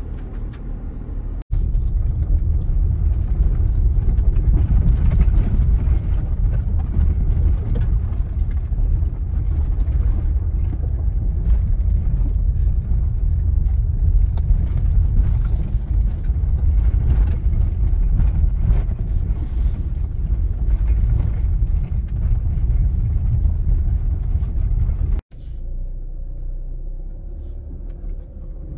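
Inside the cabin of a 2016 Mazda CX-5 driving slowly over a rough dirt forest track: a steady low rumble of tyres, suspension and engine. It cuts out abruptly twice, about a second and a half in and near the end, and is quieter over the last few seconds.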